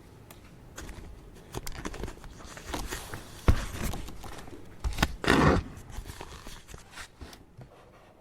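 Office desk handling sounds: irregular clicks and taps, a sharp knock about three and a half seconds in, and a short burst of paper rustling a little after five seconds.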